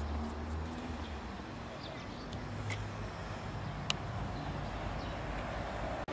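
Hands working butter into flour in a plastic bowl, against a steady low hum and a few short high chirps, with one sharp click about four seconds in.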